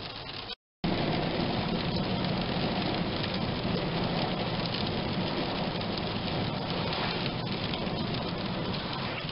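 Rain hitting a car, heard from inside, with the car's road noise under it. After a brief silent gap just over half a second in, a steady, even hiss starts suddenly and runs on.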